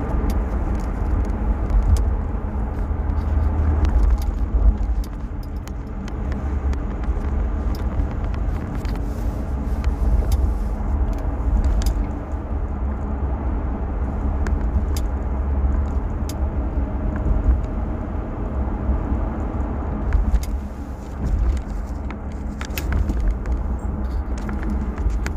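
A car driving, heard from inside the cabin: a steady low engine and road rumble, with scattered light clicks and rattles.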